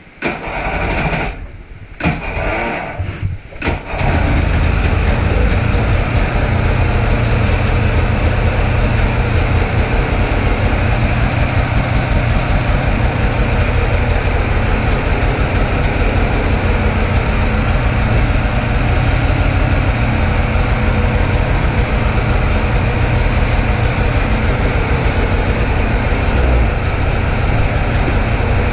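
Polaris snowmobile engine being started: a few short sputtering tries, then it catches about four seconds in and idles steadily, inside an enclosed trailer.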